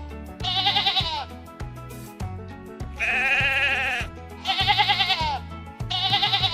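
Sheep bleating four times, each call wavering and dropping off at the end, the third longer and lower-pitched, over background music with a steady low beat.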